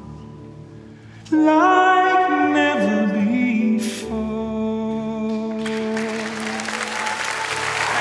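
A solo singer sings the closing phrases of a slow ballad over soft backing music. The voice comes in loudly after a hushed first second, holds a long final note, and applause and cheering swell up from about six seconds in.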